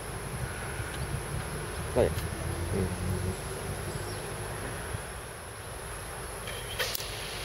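Insects chirring outdoors, a steady high-pitched drone that does not change, over a low background rumble. About two seconds in, a short sound falls in pitch and is the loudest thing; a brief click follows near the end.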